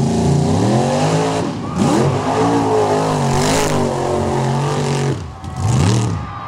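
Off-road mud-bog vehicle's engine revving hard under full throttle, its pitch climbing and falling several times, with a brief drop just past five seconds and a last rev and fall near the end.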